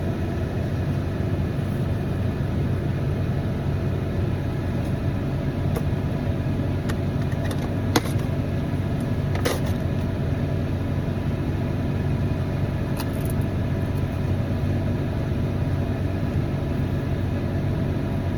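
Steady low rumble of a running vehicle engine, with a few short, sharp crunches of Pringles potato crisps being bitten, the clearest about eight and nine and a half seconds in.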